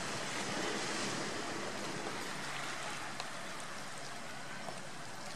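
Steady wash of sea surf, an even hiss without a break, with a faint tick about three seconds in.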